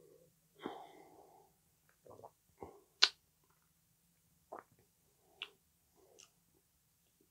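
A man sipping beer and swallowing, then tasting it with a few short, sharp mouth clicks and lip smacks, the loudest about three seconds in.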